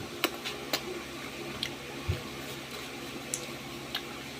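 Scattered soft, wet mouth clicks and smacks of a person chewing sugar-coated fried banana (banana cue), with one low thump about two seconds in, over a faint steady hum.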